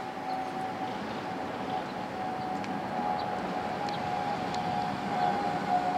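Passenger train's brakes squealing with one steady high-pitched tone over the rumble of the train rolling slowly, a second higher squeal joining about five seconds in.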